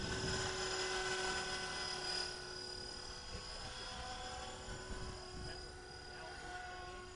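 Blade 330X electric radio-controlled helicopter in flight: the steady whine of its motor and spinning rotors. It is loudest for the first couple of seconds, then fades as the helicopter flies farther off.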